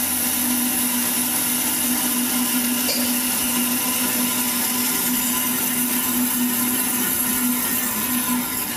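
Laguna 14|12 bandsaw running steadily with no load, an even motor hum and blade whir at constant pitch.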